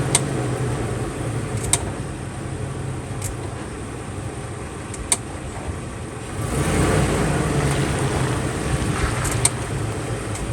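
A van driving on a rough road with steady engine and tyre rumble, and a sharp click every couple of seconds. The owner suspects the click is a loose brake pad rattling in its caliper.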